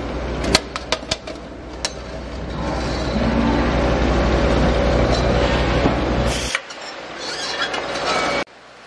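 Motor-driven rim-trimming machine running as a steel LPG cylinder half-shell spins against its rotary cutter, a steady low hum with scraping and sharp metal clicks from the curling steel strip. The hum drops away about two-thirds of the way through, and the sound cuts off abruptly near the end.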